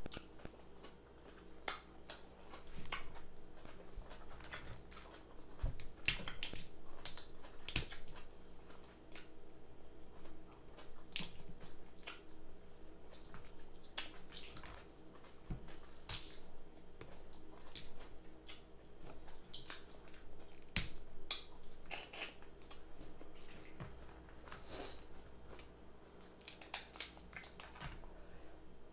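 Close-up eating of crab legs: chewing, slurping and lip-smacking, with irregular sharp clicks.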